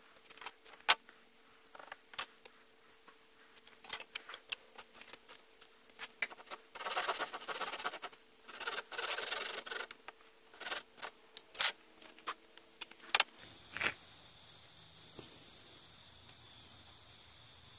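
Knocks and clicks of wood and tools on a workbench, then a few seconds of small handsaw strokes cutting wood about seven seconds in. About thirteen seconds in the sound cuts to a steady high-pitched trill over a low hum.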